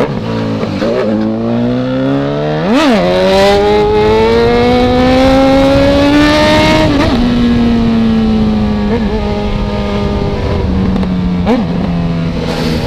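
Honda CB1000 motorcycle's inline-four engine through a 4-into-1 exhaust, ridden and revving. A quick throttle blip comes about three seconds in, then the pitch climbs steadily under acceleration until it drops about seven seconds in. After that the engine eases off, with two short blips near the end.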